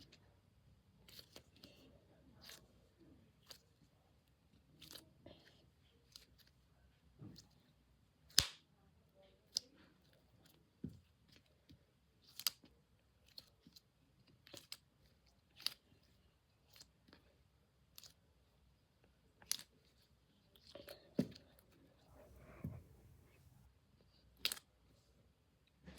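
Frozen squishy toy being squeezed and handled, giving sharp crackles and clicks at irregular intervals, roughly one a second.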